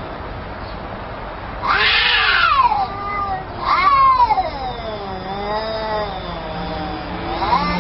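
Domestic cat yowling in long, wavering, drawn-out calls, with two louder, harsher ones about two and four seconds in. This is the threatening caterwaul of a fierce, aggressive cat.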